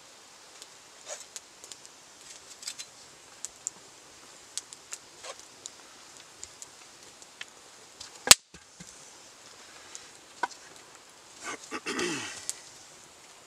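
Wood fire crackling in an open fire bowl, with scattered small pops and one loud sharp crack about eight seconds in. Near the end there is a short clatter of wood as a wooden stake is handled.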